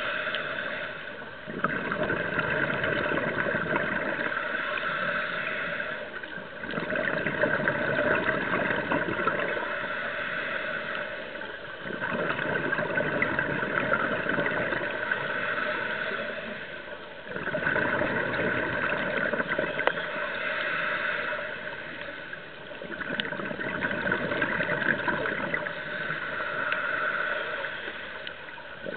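Scuba diver's regulator breathing underwater: bubbling, gurgling exhalations alternating with short lulls, about one breath cycle every five seconds.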